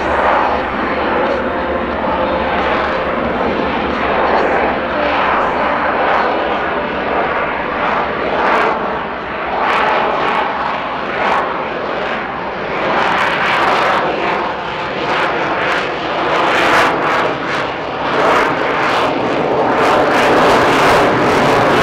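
F-22 Raptor's twin Pratt & Whitney F119 afterburning turbofans at high power during a low aerobatic pass, a loud jet rumble. It crackles more and more through the second half and gets louder near the end as the afterburners light.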